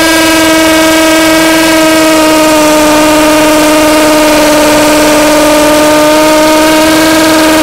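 Nanya 21V cordless hammer drill in hammer mode, boring a masonry bit into a concrete block: a loud, steady buzzing whine with many overtones, its pitch sagging slightly.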